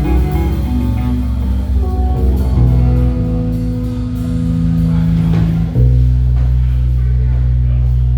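Live band playing an instrumental passage: guitar over bass guitar and drums, with long held low bass notes that change twice.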